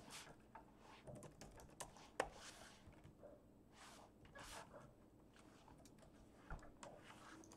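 Faint computer keyboard typing and clicks, with one sharper click about two seconds in.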